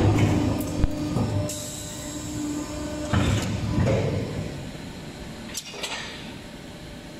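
Multi-cylinder deep drawing press line and its automatic feeder working: a steady machine hum that stops about three seconds in, with clunks and sliding mechanical noises, a hiss about a second and a half in, and clicks near the end.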